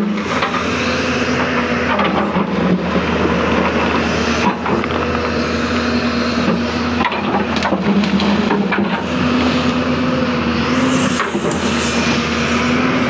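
A Hyundai hydraulic excavator's diesel engine running under load as the boom and bucket work, a steady drone that shifts a little in pitch. Occasional clunks and scrapes come from the bucket and arm against earth and stones.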